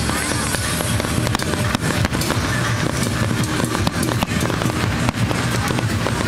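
Fireworks going off, with many sharp bangs and crackles at irregular intervals, over loud music.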